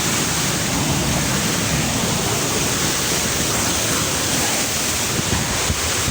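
Steady rush of fast-flowing river water falling over a waterfall, an even noise with no breaks.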